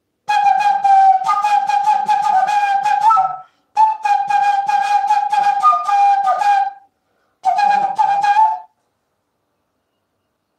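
Side-blown pipe flute playing a song melody in three phrases, two of about three seconds and a short last one. The tune stays mostly on one high note with small dips and steps.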